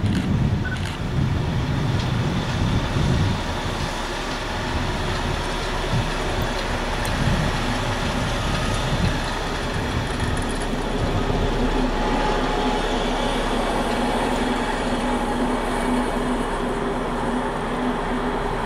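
Passing freight train: a class 221 (ex-DB V200.1) diesel locomotive's engine running heavily for the first few seconds, then a long train of empty car-transporter wagons rolling steadily by, wheels on rail, with a faint steady hum.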